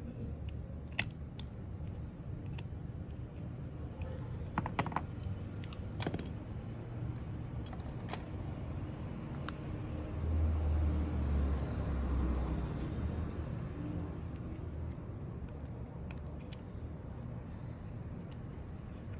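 Scattered light clicks and taps, like keys or small tools being handled, over a steady low hum. A low rumble swells for a few seconds around the middle.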